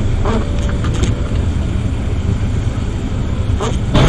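Car interior noise while driving in heavy rain, heard from a dashcam: a steady low rumble of road and engine under a hiss of rain on the windshield, with a windshield wiper sweeping near the end.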